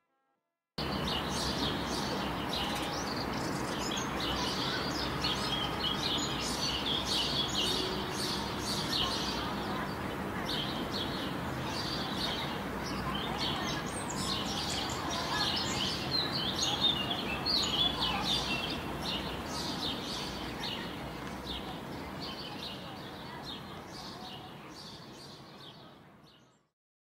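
Small birds chirping busily, many short calls over a steady low hum of background noise, fading out near the end.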